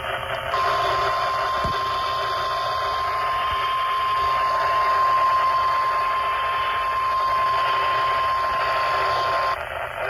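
NOAA Weather Radio warning alarm tone (1050 Hz): one steady, unbroken beep held for about nine seconds over static hiss. It plays through the small speaker of a Motorola two-way radio and signals that an emergency weather alert is being broadcast.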